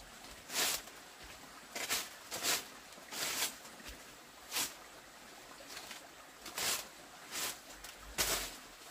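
A stalk broom sweeping bare dirt ground: short irregular swishing strokes, about one every half second to second.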